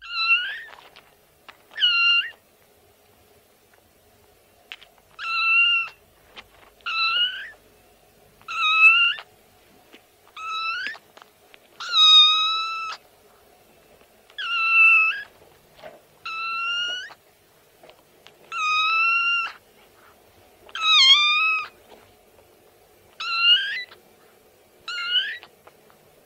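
Kitten meowing repeatedly: about a dozen short, high-pitched mews, each under a second long and coming every second or two, over a faint steady background hum.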